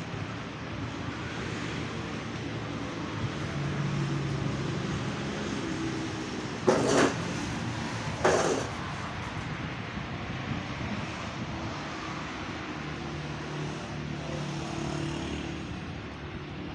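A motor vehicle engine running steadily, with two short, loud noise bursts about seven and eight and a half seconds in.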